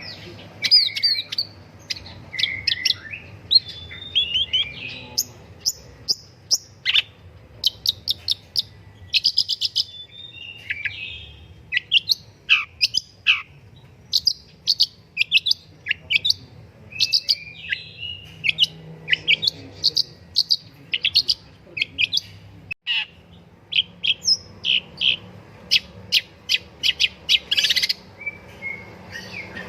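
Long-tailed shrike (pentet) singing: a fast, irregular run of sharp high chirps and short notes, some sweeping steeply downward, with scratchy chatter between them. There is a brief break a little past the middle.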